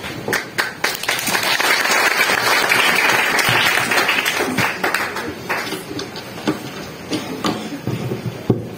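Audience applauding. It swells in the first second, is loudest around two to four seconds in, then dies away, with a few scattered claps near the end.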